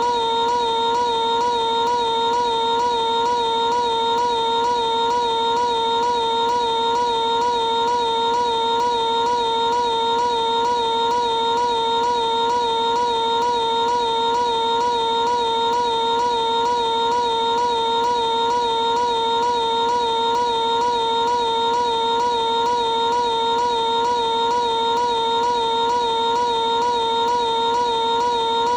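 Piglet's high-pitched cartoon voice held in one unbroken scream, looped or stretched into a steady tone with a slight regular waver in pitch.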